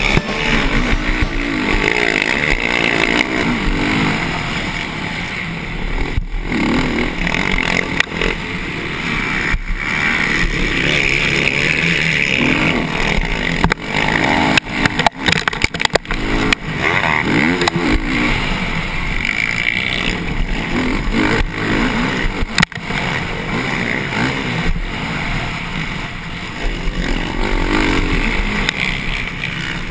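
MX1 motocross bike engine at race pace, revving up and falling back again and again through corners and straights, heard close from the rider's helmet camera. About halfway through the sound cuts out briefly several times.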